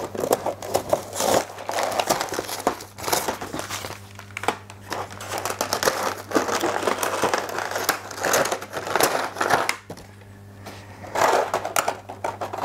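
Unpacking a scale-model kit: plastic and cardboard packaging crinkling and rustling, with handling clatter and a knock as the large die-cast metal engine part is set down.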